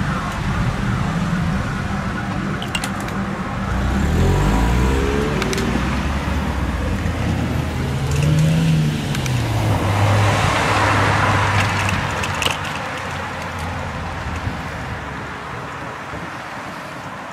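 Road traffic: car engines running, their pitch rising and falling as cars pull away and pass, with the loudest pass about ten seconds in, after which the traffic noise fades.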